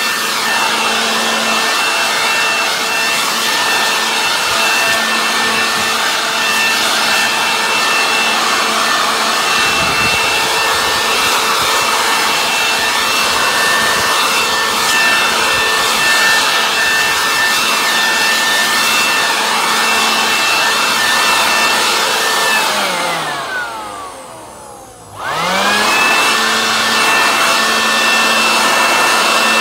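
Homelite corded electric leaf blower running at full speed: a steady high motor whine over a rush of air. Late on, it winds down, its pitch falling and the sound nearly dying away, then spins back up to the same steady whine within about a second.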